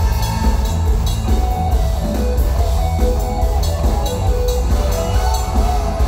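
Live band playing instrumental backing music: a drum kit keeps a steady beat on the cymbals over a heavy, continuous bass, with held keyboard notes.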